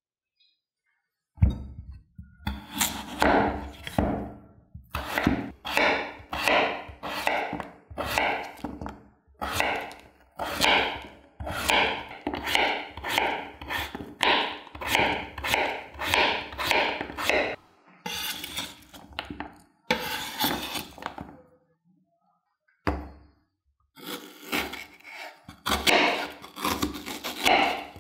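A chef's knife chopping through raw potato on a bamboo cutting board. Each cut ends in a knock on the wood, about two cuts a second, with one short break; near the end the knife is cutting an onion.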